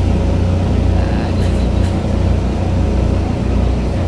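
Pasig River ferry's engines running steadily underway, heard from inside the passenger cabin as a constant low drone.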